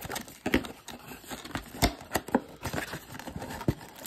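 Cardboard trading-card blaster box being handled and torn open by hand: a string of irregular cardboard rips, scrapes and knocks.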